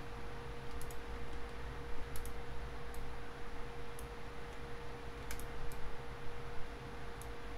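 Computer mouse clicking, about eight short clicks at irregular intervals, over a steady hum.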